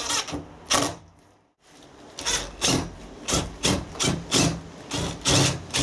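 Screws being driven by hand into a wooden window frame, each twist of the screwdriver giving a short rasping creak, about two to three a second, after a brief break about a second and a half in.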